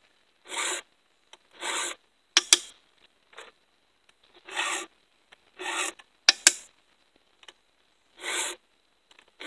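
Round chainsaw file pushed across the cutters of a ripping chain in a hand file guide: pairs of rasping strokes, about half a second each. Each pair is followed by two sharp taps, and the pattern repeats about every four seconds.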